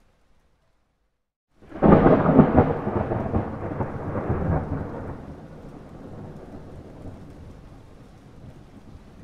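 A thunder clap. After about a second and a half of silence it breaks in suddenly and loud, crackles and rolls for about three seconds, then fades into a low rumble with rain hissing underneath.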